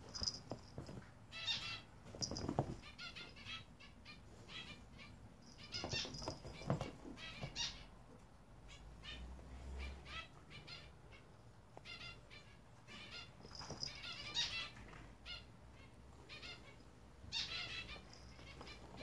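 Cats scuffling on a fabric couch: irregular bursts of scratching and rustling from claws on the upholstery, with two thumps in the first half.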